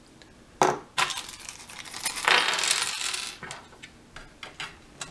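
Small loose metal hardware (washers, nuts and screws) clinking as it is handled: two sharp clicks about half a second and a second in, a longer jingling rattle in the middle, then a few small clicks.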